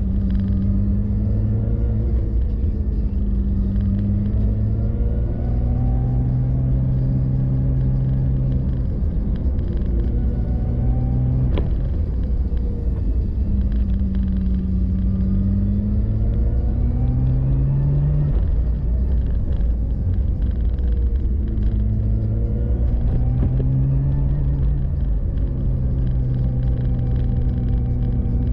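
A car's engine and low road rumble heard while driving, the engine note repeatedly climbing as it accelerates and dropping back at each gear change.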